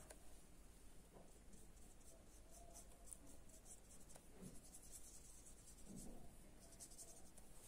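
Near silence with the faint, soft strokes of a watercolour brush moving over paper.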